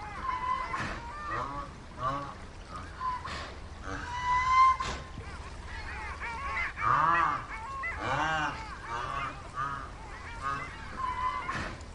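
Zebras calling: a string of short, honking yelps repeated in quick series, loudest about seven and eight seconds in.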